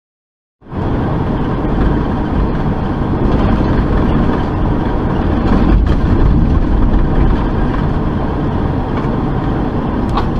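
Truck engine and road noise heard from inside the cab while driving at highway speed, a loud steady sound that starts suddenly about half a second in.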